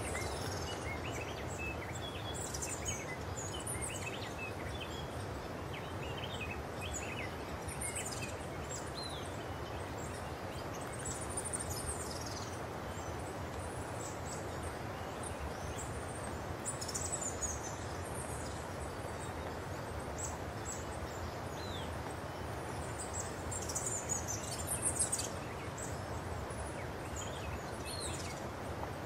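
Forest ambience: a steady background hiss with many short, high-pitched bird chirps and twitters scattered throughout, clustering more densely in a couple of spells, the busiest near the end.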